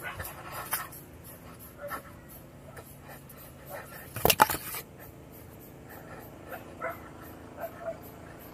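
A person breathing hard and panting while climbing a rock outcrop, with scattered short breaths and one loud knock or scrape about four seconds in.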